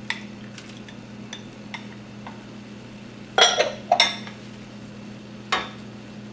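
A spatula scraping chopped mushrooms out of a glass bowl and stirring them into a creamy sauce in a skillet. Light taps and scrapes run throughout, with two sharper clinks about three and a half and four seconds in and one more about a second and a half later.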